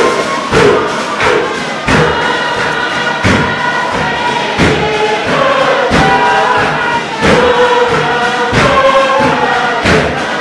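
Tuvaluan fatele: a large group singing in chorus over a steady beat of hand strikes on a wooden beating box, about one and a half strikes a second.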